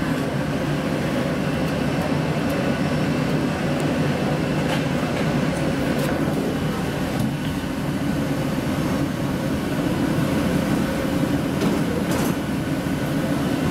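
Steady low machinery drone inside an airport jet bridge, with a few faint clicks and knocks.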